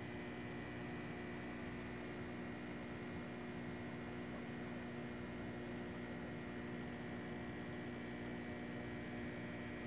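Steady electrical hum with several fixed tones over a faint hiss, unchanging throughout.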